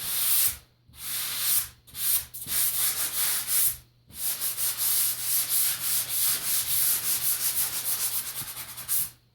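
Light-grit sanding sponge rubbed back and forth over dried joint compound on a ceiling patch, a light sanding to take off edges and lips. A few longer strokes with short pauses, then after about four seconds a fast run of short back-and-forth strokes.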